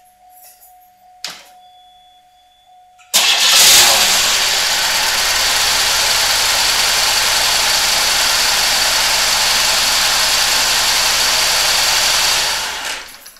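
A steady tone and a click, then about three seconds in a 1991 Buick LeSabre's 3800 V6 starts up. It runs quite rough at a steady idle for about nine seconds and is then shut off. It is firing on only three cylinders: one ignition coil has failed, and one plug wire is diverted to a grounded test spark plug.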